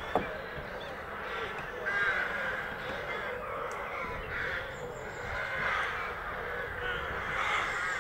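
Harsh bird calls repeating every second or so, with a sharp knock just after the start.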